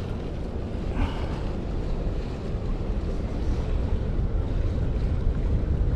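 Steady wind buffeting the microphone, with the wash of choppy sea below.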